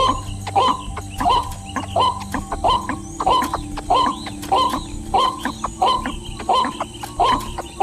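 Background music with a steady beat of a little under two strokes a second over held chords.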